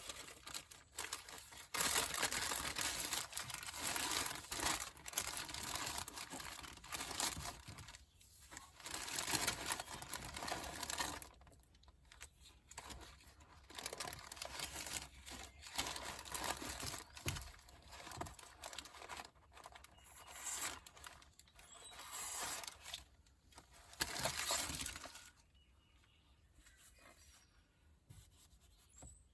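Paper crinkling and tearing in irregular bursts of handling, like masking paper and tape being crumpled and pulled off. It is fainter for the last few seconds.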